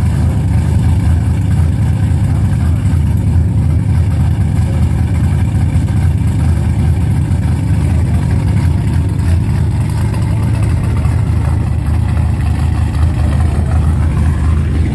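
V8 muscle car engine running at a steady idle: a loud, deep, even rumble.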